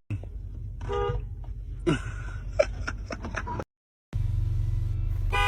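Two short air horn blasts, one about a second in and one near the end, over a steady low hum, with a brief drop to silence between them.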